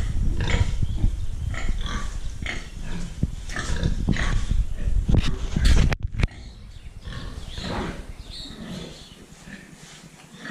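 Pigs grunting and squealing in a run of short calls. The sound drops away suddenly about six seconds in and carries on more faintly.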